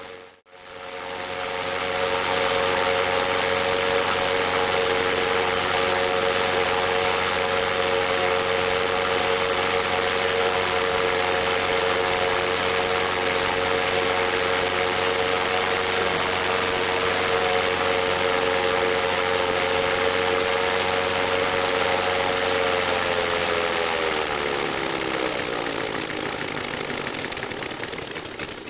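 Hand-built Lee Hodgson-designed 9-cylinder model radial engine with a 32-inch propeller running steadily at high speed. After a short dropout just after the start it runs evenly, then about three quarters of the way through its pitch falls steadily as the engine slows and winds down.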